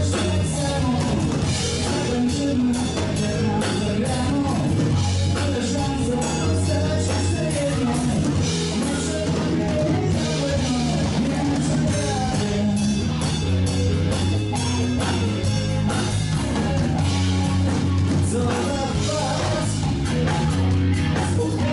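Blues-rock band playing loud, driving music on electric guitar and drum kit, with singing.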